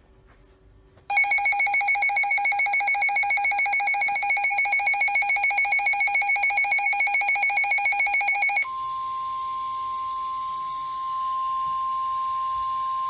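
Weather radio alert tones. About a second in, a loud, rapidly pulsing electronic alarm of several pitches sounds for about seven seconds. It then gives way to a single steady high tone, the NOAA Weather Radio warning alarm tone that heralds a new warning.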